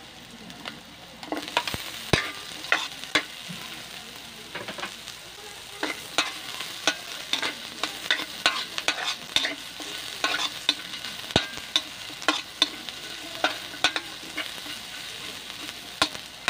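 Garlic, onion and ginger sizzling in oil in a metal wok, with a metal spoon scraping and clacking against the pan as they are stirred: a steady sizzle with frequent sharp clicks.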